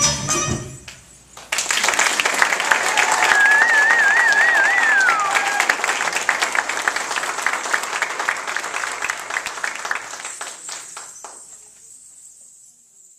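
Audience clapping and cheering after a belly dance performance, starting just after the music dies out and fading away gradually toward the end. A high warbling cry from the crowd rises over the clapping about three seconds in and falls off at its end.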